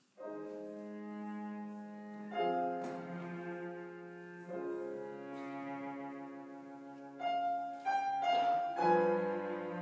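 Piano and string quartet (two violins, viola, cello) playing the slow instrumental introduction of a song: sustained chords that change about every two seconds, with a few quicker, higher notes near the end.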